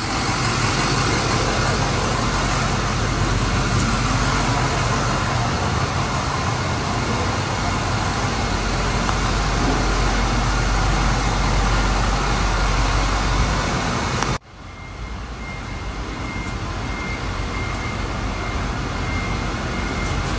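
Steady engine-like rumble and hiss of machinery around a warehouse loading dock. It cuts off abruptly about two-thirds of the way through, and a quieter steady hum with a faint high whine takes over.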